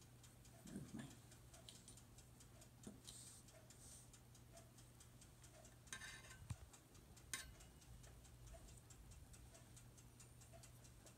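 Near silence, with a faint, steady ticking like a wall clock. Around the middle come a few soft clicks and a brief scrape as a metal spatula sets dough cookies onto a metal baking sheet.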